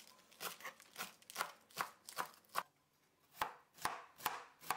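Chef's knife chopping pechay (bok choy) and celery on a plastic cutting board: light, evenly spaced knocks about two or three a second, with a short pause about halfway.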